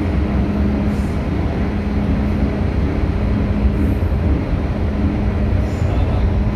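Inside the cabin of an MTR M-Train running through a tunnel: a steady low rumble with a constant hum.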